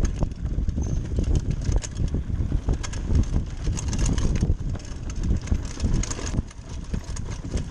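Giant Talon 3 29er mountain bike rolling fast over a dirt forest trail: tyre rumble and rattling knocks as the bike goes over bumps and roots, with wind buffeting the microphone.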